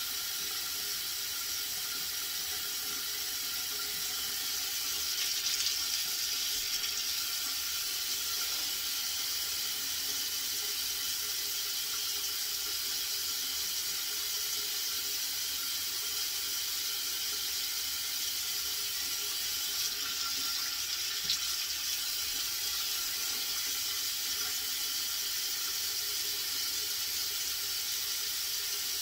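Steady hiss of water running from a tap. Now and then comes a faint short scrape of a safety razor on a lathered scalp.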